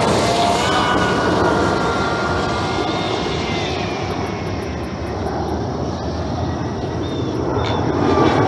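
Jet aircraft passing overhead: the Canadian Forces CT-114 Tutor jets making a steady, loud rush with a thin whine that slides slowly down in pitch over the first few seconds.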